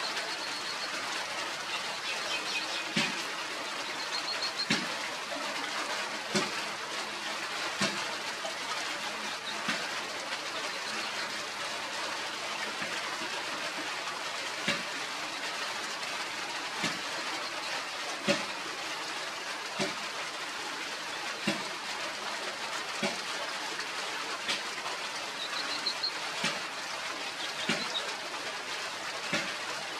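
Steady rushing, water-like noise, with a short soft knock about every one and a half to two seconds and a few brief high chirps.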